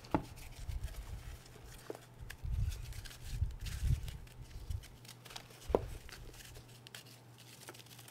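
Hands crushing and digging through crumbled reformed gym chalk in a tub: soft muffled thuds of fingers pressing into the powder and a grainy rustle, with a few sharp snaps as chunks break, the loudest about six seconds in.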